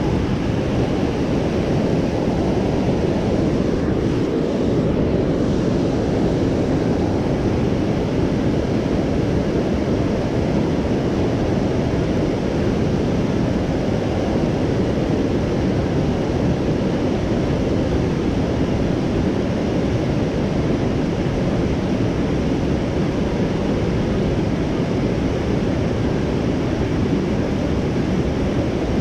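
Steady rushing of river water pouring over a weir and through rapids.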